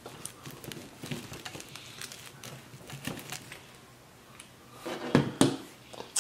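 Pizza cutter wheel rolling through a pizza's crust down to its cardboard round, giving small crackles and clicks, then a short loud burst of wet mouth sounds about five seconds in as sauce is licked off the fingers.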